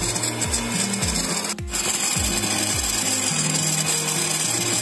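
Electric hand mixer running at speed, its beater whipping egg whites to a foam in a plastic bowl: a steady motor whine with a scraping, rasping whir, broken briefly about a second and a half in.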